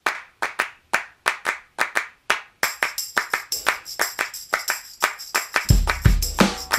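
Background music intro built on rhythmic handclaps, which play alone at first; a high jingling shimmer joins about two and a half seconds in, and a deep bass beat comes in near the end.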